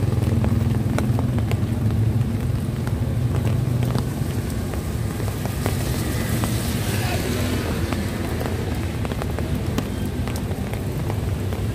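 Heavy rain falling on a wet street, with many single drops tapping close by. A low steady engine hum fills the first few seconds and then fades, and a hiss swells briefly around the middle.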